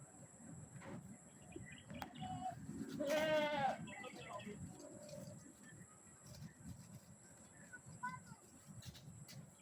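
Goats bleating: one loud, wavering bleat about three seconds in, with a few fainter short calls before and after it.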